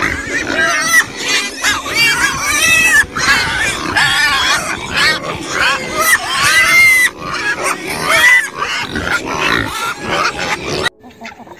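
A crowd of pigs and piglets squealing, many loud, high-pitched, arching squeals overlapping one another. The squealing cuts off abruptly near the end.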